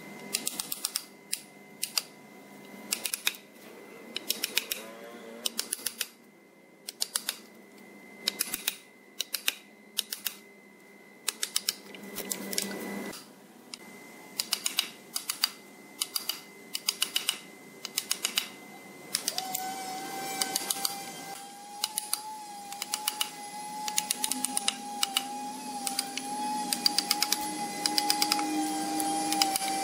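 Wooden mallet striking a chisel into the end grain of a hardwood pedestal, in quick bursts of several sharp taps with short pauses between. About two-thirds of the way through, a steady machine whine starts up underneath.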